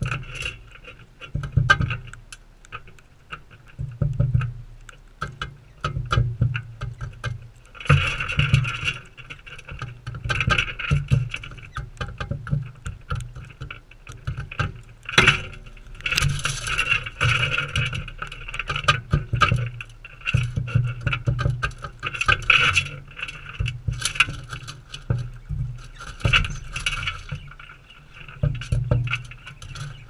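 Galahs feeding from a seed bowl close to the microphone: dense runs of sharp clicks, taps and scrapes as their beaks pick and crack seed against the bowl, with dull knocks and thuds where the birds bump the camera.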